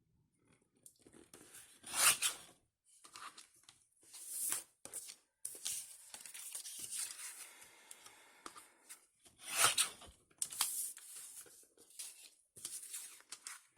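Paper being cut on a sliding paper trimmer and handled: a run of scraping and rustling sounds, loudest about two seconds in and again near ten seconds.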